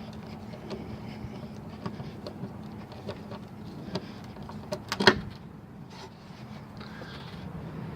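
Crosshead bit in a multitool's hex driver being turned in a screw by hand. It makes scattered small clicks and creaks, with one sharper click about five seconds in, over a steady low hum.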